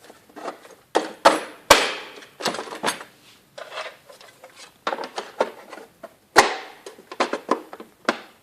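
Hard plastic knocks and clacks as plastic reel barrels are popped one by one into the slots of the reel's plastic flanges. The sharpest clacks come about one and a half seconds and six seconds in.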